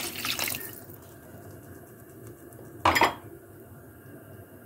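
Hot water pouring into a pot of roasted tomatoes and onions, stopping within the first second. Then one sharp knock on the pot about three seconds in.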